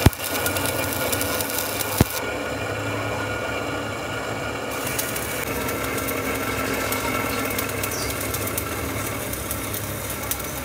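Stick (shielded metal arc) welding on the steel eye of a hydraulic cylinder shaft: a steady crackling, buzzing arc, with sharp clicks at the start and about two seconds in.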